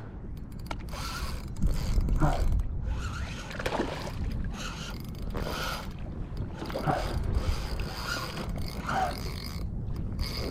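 Ultra-light spinning reel being cranked, its mechanism clicking and whirring as a hooked small bonefish is reeled in, with wind rumbling on the microphone.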